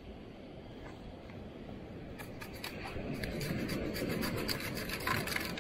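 Stainless-steel long-handled sand scoop digging into dry beach sand, then shaken to sift it: sand grating and hissing through the perforated metal basket. A run of quick scraping, rattling strokes starts about two seconds in and grows louder.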